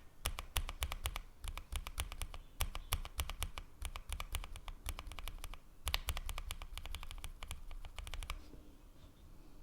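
Typing on a mechanical keyboard fitted with Kailh Box linear switches: quick runs of keystrokes, each a sharp clack, that stop about eight seconds in.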